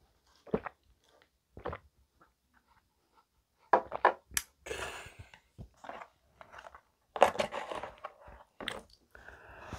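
Close-miked gulps of a soju shot, then a glass shot glass clicking down on the table about four seconds in, followed by scraping and knocking of a plastic takeout soup container being handled and picked up.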